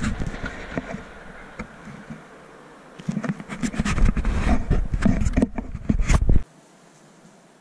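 Wind and handling noise on a hand-held camera's microphone as it is carried and swung about: an irregular rumble with many knocks and crackles, easing off for a moment and then coming back loud. It cuts off suddenly about six seconds in, leaving a faint steady hiss.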